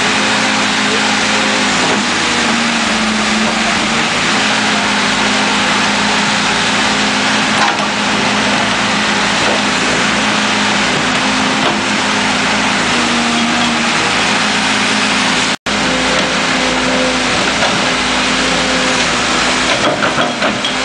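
Backhoe loader's engine running steadily under load as the arm and bucket work, its pitch shifting slightly up and down. The sound drops out for an instant about fifteen seconds in.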